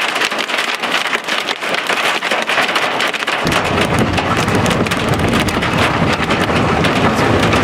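Large hail pelting down in a dense, rapid patter of hits. About three and a half seconds in, strong wind noise on the microphone joins it.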